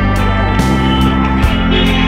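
Background music with guitar and a steady beat, the chord changing twice.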